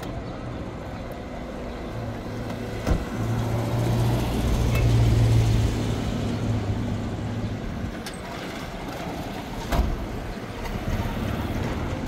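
A motor vehicle engine humming steadily over background traffic noise. The hum swells about three seconds in and eases off near eight seconds. Two sharp knocks come through, one near three seconds and one near ten.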